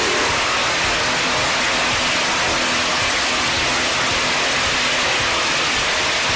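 Steady, even rushing noise of wood-processing machinery running, with no distinct engine note or separate impacts.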